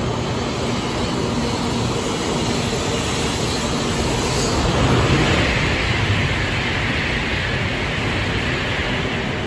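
Taiwan High Speed Rail 700T bullet train pulling out of the station, its cars rushing past close by with a steady rumble of wheels and air. The sound swells slightly about halfway through.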